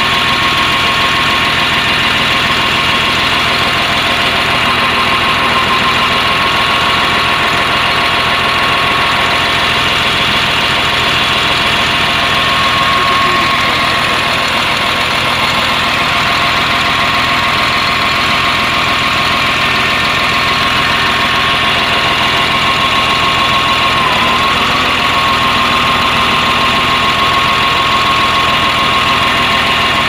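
Caterpillar 950H wheel loader's six-cylinder diesel idling steadily with a misfire. The mechanic puts the misfire down to one faulty injector that is not firing properly.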